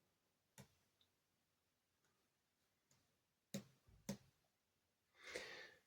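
Near silence with a few faint, isolated clicks, and a soft rushing noise near the end.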